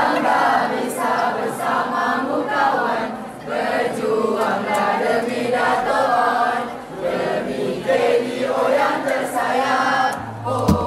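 A crowd of students chanting together in loud, rhythmic phrases, a group cheer sung in unison. Music starts near the end.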